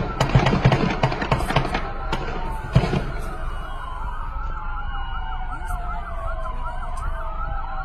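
A rapid volley of many gunshots from several guns over the first two seconds or so, with one last shot near three seconds. Several police sirens wail over one another throughout and are left on their own once the shooting stops.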